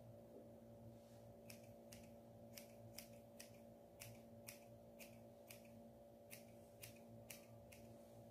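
Scissors snipping a small white dog's fur: a run of about sixteen sharp snips, roughly two a second, starting about a second and a half in, over a steady low hum.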